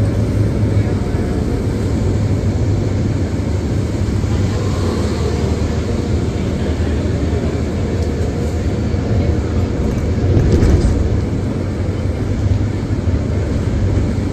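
Steady low rumble of a moving vehicle's engine and tyres heard from inside the cabin, swelling briefly about ten and a half seconds in.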